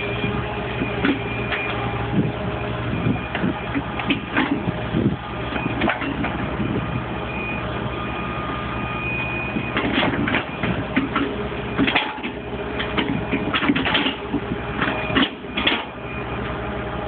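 Hitachi EX120 hydraulic excavator running steadily, with repeated sharp metallic clanks and knocks from the working machine, coming thicker in the second half, and a few brief high squeaks.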